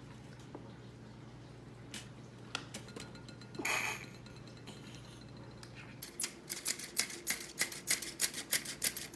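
A cup of flour tipped into an old metal hand-squeeze flour sifter with a short soft rush about four seconds in, then the sifter's squeeze handle clicking rapidly, several times a second, as it sifts the flour into a glass bowl.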